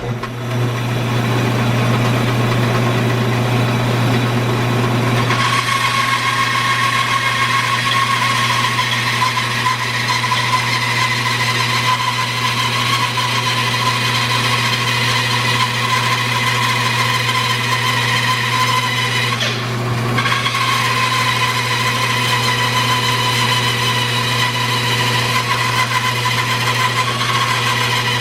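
Bandsaw running with a steady low motor hum. About five seconds in, a higher steady whine joins as the blade cuts into a green maple log riding on a sled, dipping briefly about two-thirds of the way through, then carrying on. The cut is straight, with no blade dive.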